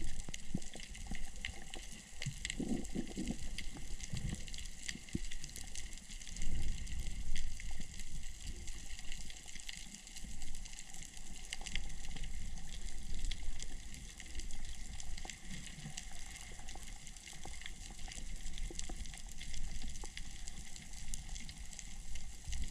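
Underwater ambience: a low, uneven rumble of moving water with many faint scattered clicks and crackles throughout.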